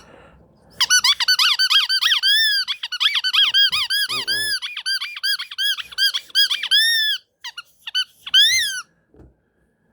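A rapid run of high squeaks, several a second, each rising then falling in pitch, for about six seconds. A few scattered squeaks follow, then it stops.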